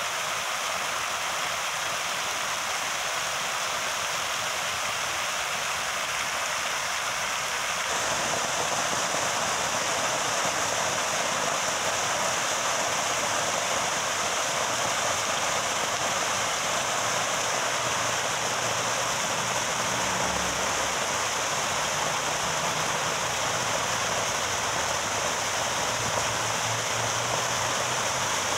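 Fountain water splashing: thin arching jets falling onto the pool surface and water spilling over the stone rim of the basin, a steady rushing splash. It gets louder about eight seconds in.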